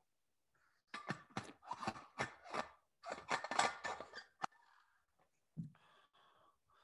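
Two bursts of quick, sharp clicks and taps, the second denser, from handling things at a desk, with a single low thump near the end.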